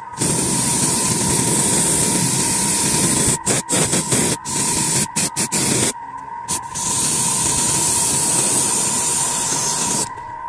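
Hissing spray that starts and stops in bursts, with several short breaks around the middle, as from a spray nozzle worked on and off. A steady thin whine runs underneath.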